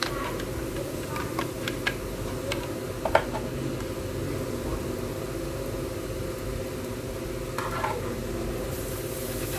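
Crushed garlic and onion sizzling gently in butter in a frying pan, with a few sharp crackles in the first three seconds, the loudest about three seconds in, over a steady low hum.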